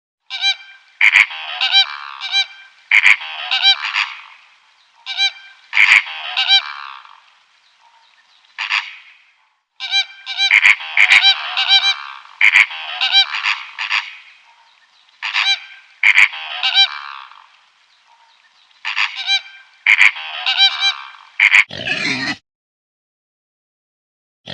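An animal calling over and over, in groups of several sharp calls with short pauses between them. Near the end, a brief, lower and rougher sound follows.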